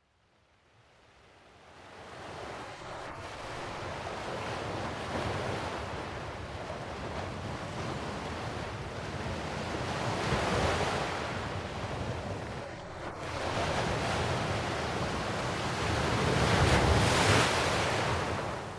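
Sea surf with wind: waves washing in as a steady rush that fades in over the first couple of seconds, then swells louder about ten seconds in and again near the end.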